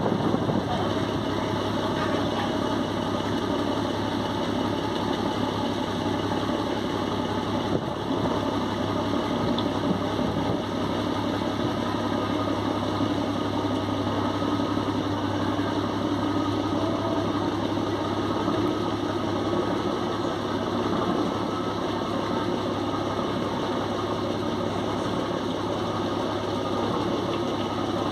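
A boat's engine running steadily, an even, unchanging drone with a low hum.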